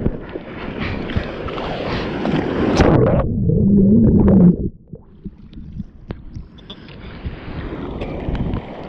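Whitewater rushing and splashing over a bodyboard-mounted action camera. A little over three seconds in, the board and camera go under the water and the sound turns suddenly muffled to a low underwater rumble, then goes quieter. The splashing gradually comes back as they resurface.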